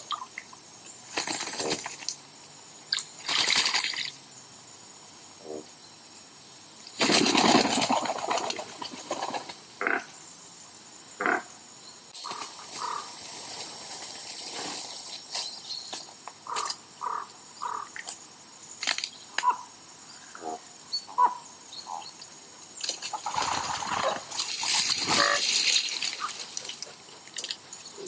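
Woodpigeons at the water's edge: splashing and wing noise in two longer bursts, about seven and twenty-three seconds in, with scattered short splashes and rustles. Between the bursts come short, clear bird notes.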